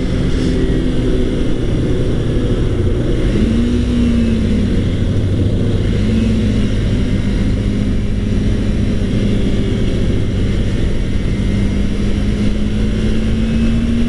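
Kawasaki Ninja 300's parallel-twin engine running while riding, its note rising and falling briefly twice and climbing again near the end, under steady wind rush on a helmet-mounted microphone.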